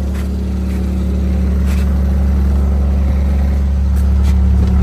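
Bobcat skid-steer loader's engine running steadily with a deep hum, growing slightly louder in the second half, with a few faint knocks.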